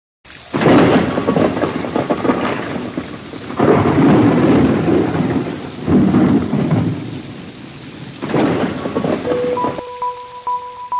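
Thunderstorm: heavy rain hissing with four rolls of thunder, each swelling up and fading away. About ten seconds in, the storm gives way to steady electronic beeping tones.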